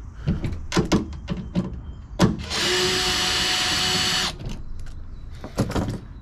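Porter-Cable 20V cordless drill spinning a socket for almost two seconds to back out a taillight mounting bolt. Clicks and knocks of the tool and bit being handled come before and after it.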